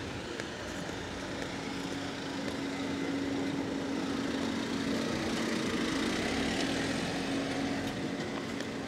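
A motor running with a steady hum that grows louder to its peak about six seconds in, then eases off toward the end, as a vehicle going past would.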